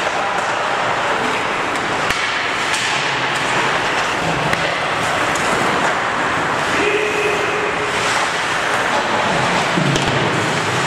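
Ice hockey game sounds in a rink: a steady rushing background noise with skates scraping the ice, sticks and puck clacking now and then, and a few brief shouts from players.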